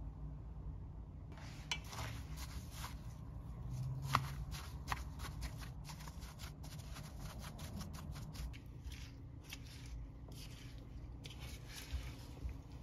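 Rustling and scraping with many quick small clicks, as of objects being handled close to the microphone, starting about a second in.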